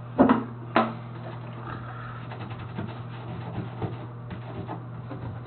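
Two sharp knocks, then light hand-sanding: sandpaper rubbing and scratching over the plastic bathtub around a crack, preparing the surface for epoxy filler.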